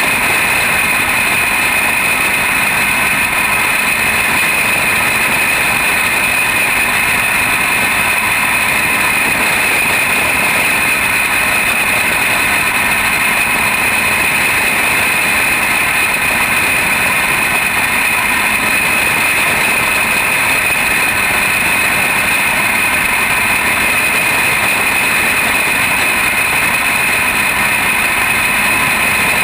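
Junior champ kart's small engine running steadily at racing speed, picked up close by an onboard camera on the kart's roll cage; the sound holds even, with no pauses or changes in pitch.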